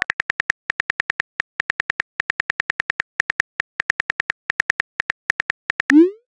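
Phone keyboard key-click sounds tapping rapidly in short runs with brief pauses as a text message is typed out, then a short rising swoop near the end, the message-send sound.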